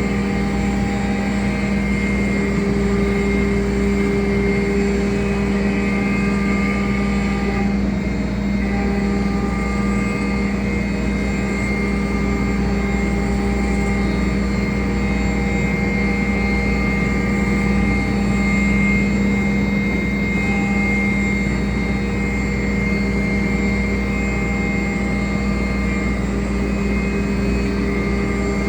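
CNC router running: a steady motor hum, with higher tones that drop out and come back every few seconds as it cuts.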